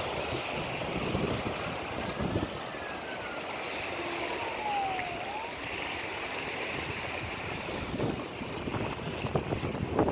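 Ocean waves and surf washing, with wind buffeting the microphone. A faint, thin whistle-like tone glides downward about a third of the way through.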